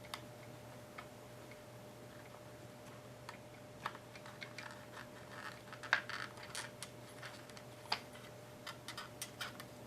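Scattered small clicks and taps of the opened cordless drill's plastic housing and internal parts being handled. The clicks are sparse at first and come more often in the second half.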